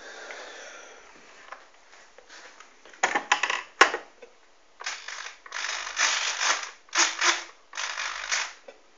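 A few sharp clicks, then several short bursts of rattling, ratchet-like mechanical noise, each about half a second long.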